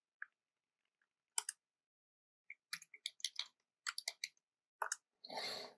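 Faint computer keyboard keystrokes: a few scattered taps, then a quick run of keys in the middle and a couple more late on. A short soft rush of noise just before the end.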